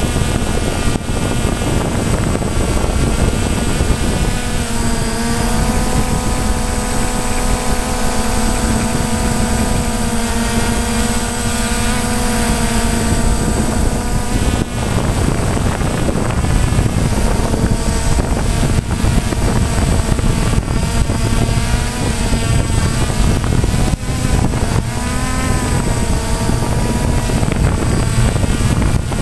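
DJI Phantom quadcopter's motors and propellers running close to the on-board GoPro microphone, a loud steady buzzing whose pitch slides up and down as the motors change speed. A thin high steady whine runs through it, with some wind rumble on the microphone.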